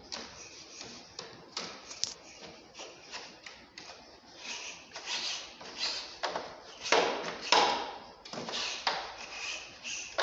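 A small wet brush scrubbing the back of a split AC's indoor coil in irregular, scratchy strokes, louder for a few strokes about seven seconds in.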